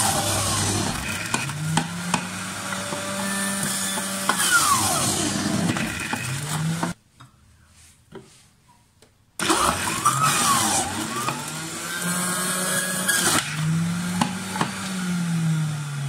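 Philips centrifugal juicer's electric motor running as carrot pieces are pushed through it, its pitch sagging and recovering again and again as each piece loads it. The sound breaks off abruptly for about two seconds, about seven seconds in, then the juicer runs on.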